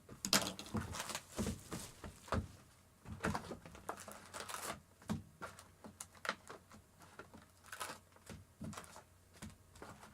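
Hands handling a trading card box and its foil packs: an irregular run of taps, clicks and crinkling rustles.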